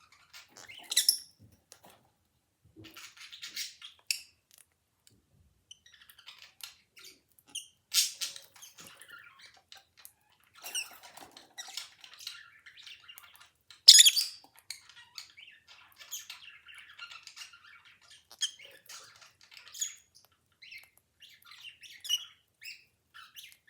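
Pet birds chirping and squawking on their own, a scatter of short high calls with a few louder, sharp squawks at about one, eight and fourteen seconds.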